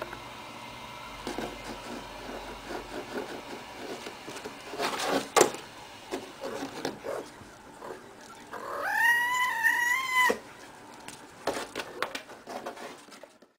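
A cat gives one long meow, about a second and a half, rising then held level, amid scattered rustling and light knocks as it plays.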